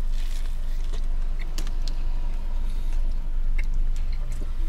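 Steady low rumble of a car cabin with the car running, with scattered small clicks and crinkles of someone chewing a sandwich and handling its wrapper.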